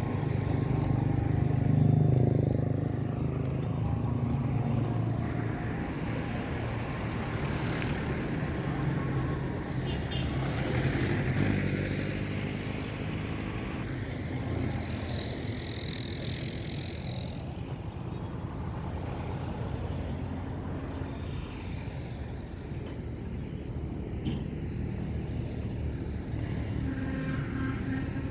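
Road traffic: vehicle engines running, with cars passing one after another.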